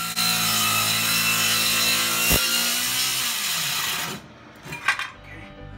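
Corded circular saw cutting through a plywood subfloor along a straight line. The motor's pitch drops about three seconds in as it winds down and stops about four seconds in, followed by one short knock near the end.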